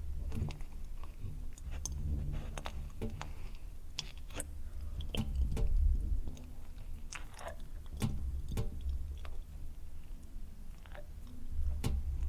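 Wet, slimy noises drawn from a saxophone: irregular clicks and drips scattered over a low, continuous rumbling drone, with soft thumps, swelling loudest about halfway through.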